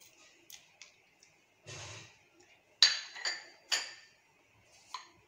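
Glass bowl clinking against the rim of a steel mixer-grinder jar as roasted chutney ingredients are tipped and scraped in: a few short sharp clinks, with a brief soft rustle about two seconds in.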